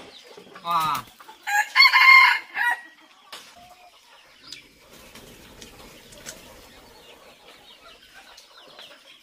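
A rooster crowing once, loud, from about half a second to about three seconds in, followed by faint clucking and calls from a yard flock of chickens.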